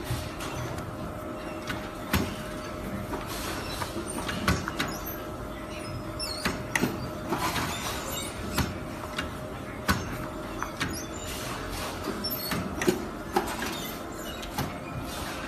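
Workshop machine noise from a high-frequency PVC welding machine: a steady hum with irregular knocks and clacks as the press works and PVC notebook covers are handled.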